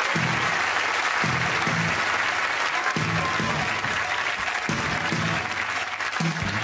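Studio audience applauding, with music starting up underneath: repeated low chords come in just after the applause begins.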